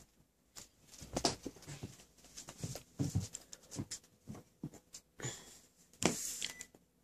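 A dog sniffing and snuffling close to a carpet while hunting for a treat: short, irregular sniffs and small rustles, with a longer, louder snuffle about six seconds in.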